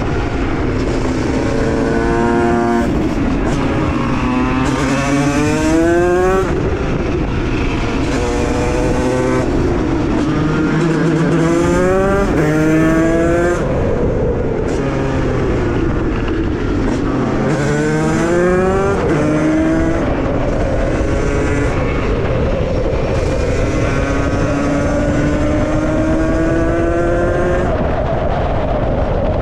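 Beta RR50's two-stroke Minarelli AM6 engine, bored to 77 cc with a Stage 6 kit and breathing through a 28 mm carburettor and a KTM SX85 exhaust, revving hard. The pitch climbs over a second or two, drops back and climbs again, about half a dozen times.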